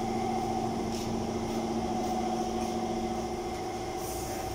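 A machine running steadily: a constant droning hum at a fixed pitch, with no change in speed.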